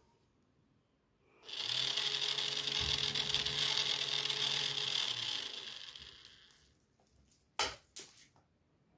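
Small 45 rpm geared DC motor running and turning two meshed plastic gear wheels: a steady whir with a high hiss, lasting about four seconds, then fading out. Two sharp clicks follow near the end.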